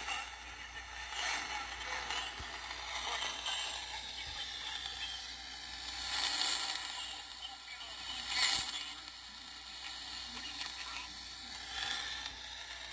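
Regenerative shortwave receiver's audio playing through an amplifier and speaker: a steady hiss of band static with a high-pitched whistle that dips briefly in pitch a few times.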